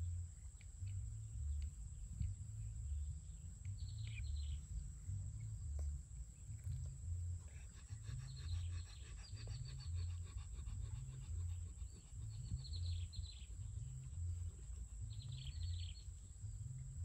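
Outdoor ambience of birds calling: short clusters of high chirps about four seconds in, again in the middle and near the end, with a rapid chattering run in the middle, over a steady low rumble and a thin steady high insect-like whine.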